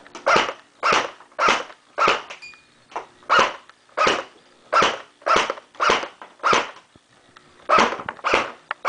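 Echo 1 P-90 electric airsoft gun firing repeatedly, a sharp short crack about twice a second.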